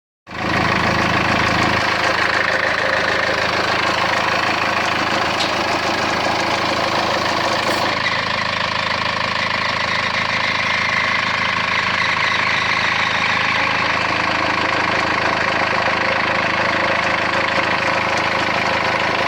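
Vehicle engine idling steadily with an odd running noise from the accessory drive, which the owner suspects comes from the belt or the alternator.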